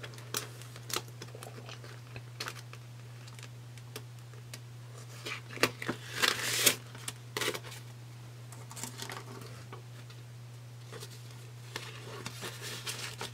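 A clear plastic zipper pouch being opened by hand and paper banknotes pulled out and handled: scattered crinkling of plastic and rustling of bills, busiest around six seconds in. A steady low hum runs underneath.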